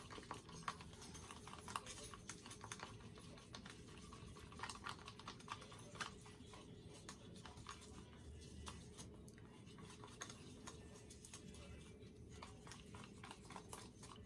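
Wooden popsicle stick stirring acrylic paint and pouring medium in a small cup: faint, irregular ticks and scrapes of the stick against the cup.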